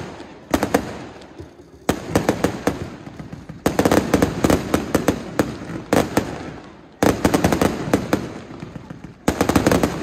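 Fireworks display: aerial shells and crackling effects going off in volleys of rapid bangs, a fresh volley every couple of seconds.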